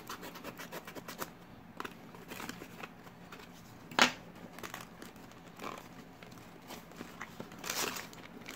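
A hobby knife scraping quickly along the seal of a small cardboard box, then the card flaps being handled open, with a single sharp tap about four seconds in. Near the end a foil bag inside the box crinkles as it is pulled out.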